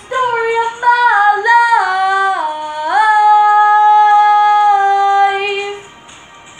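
A girl singing a long drawn-out run that steps down in pitch, then holds one steady note that ends about six seconds in.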